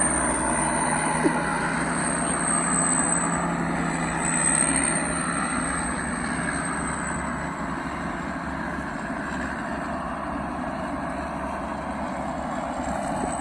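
Turbocharged diesel truck engine running steadily, with a thin high turbo whistle over it and a slight swell in engine sound about four seconds in.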